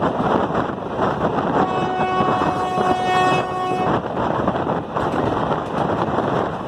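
A train horn sounds one steady, unwavering blast of about two seconds, starting about a second and a half in, over the constant rumble and wind rush of a moving train.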